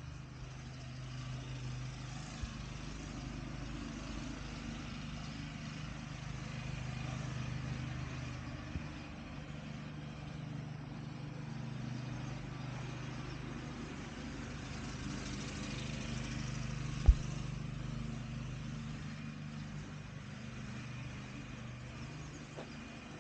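Steady low motor hum, with one sharp knock about three-quarters of the way through and a couple of faint clicks earlier.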